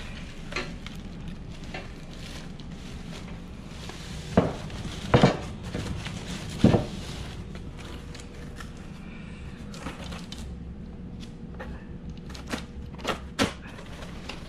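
Unpacking noises from handling the boxed trike parts: three loud knocks and clanks between about four and seven seconds in, over rustling of plastic wrap and cardboard, then a few sharper clicks near the end.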